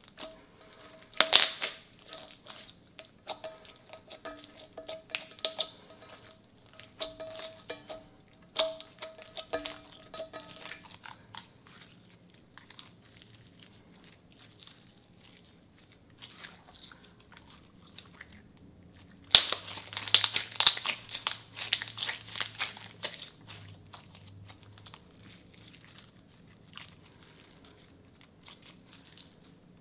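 Clear slime kneaded, pressed and folded by hand, giving a stream of sticky clicks and crackles. The crackling comes in loud clusters, briefly near the start and most densely for a few seconds about two-thirds of the way through.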